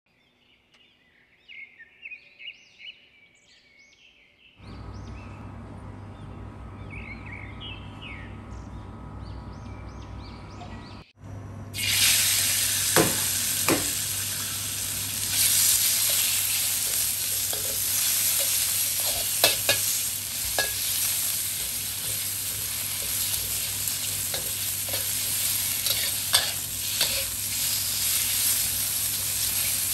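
Slices of fatty pork belly sizzling and frying in hot oil in a wok, with a spatula scraping and clicking against the pan as they are stirred so their fat renders out. The first dozen seconds are much quieter, with short high chirps and then a low hum. The loud sizzle starts about twelve seconds in.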